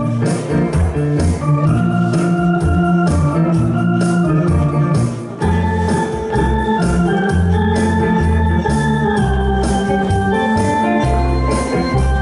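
Electronic arranger keyboard playing a melody in an organ-like voice over its automatic accompaniment: a steady drum beat and a moving bass line.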